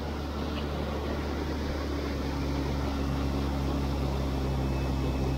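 Small skiff's outboard motor running steadily under way, with the hull's spray and wind rushing over it; the engine gets a little louder about halfway through.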